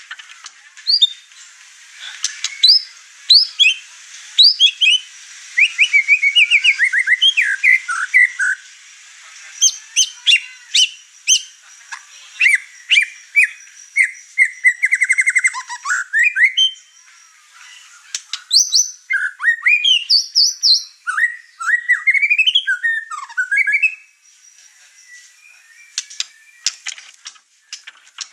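White-rumped shama (murai batu) in full, over-excited song, pouring out its repertoire of learned phrases: whistled notes gliding up and down, rapid trills and sharp chips in quick succession. It drops to a few scattered, quieter notes in the last few seconds.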